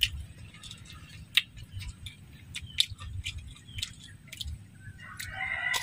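Close-up eating sounds: chewing crisp-skinned fried duck, with sharp little crunches and clicks scattered through and a low rumble underneath. A short, higher-pitched call rises near the end.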